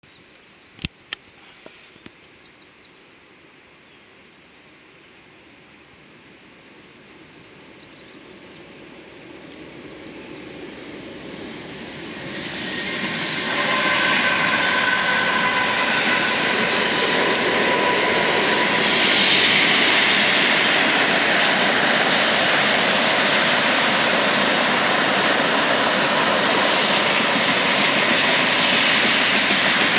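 A BNSF freight train approaches and passes below. The sound builds gradually over the first dozen seconds, then turns loud and steady as the two lead diesel locomotives go by with their engines running and a steady whine. The long string of tank cars follows, rolling steadily over the rails.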